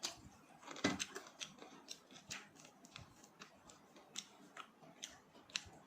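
Close-miked chewing of crispy fried chicken: irregular crisp crunches and small mouth clicks, a few a second, the loudest about a second in.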